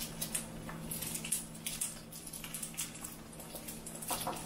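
Faint, scattered light clicks and scrapes of a metal spoon against a glass jar of rose jam and the ceramic ramekins, with a short cluster near the end, over a steady low hum.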